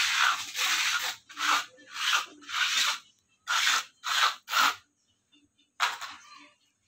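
Hand sanding of a plywood cabinet panel with sandpaper: short rasping back-and-forth strokes, about two a second, then a pause and one last stroke near the end.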